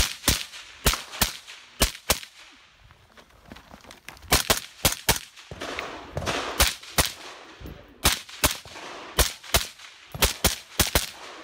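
PWS MK114 14-inch AR-15 rifle fired in quick strings of shots, roughly three a second, with short pauses between strings.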